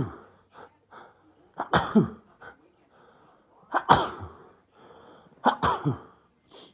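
A person sneezing three times, about two seconds apart, each a sharp burst with a falling voiced cry, with short breaths drawn in between: allergy sneezes.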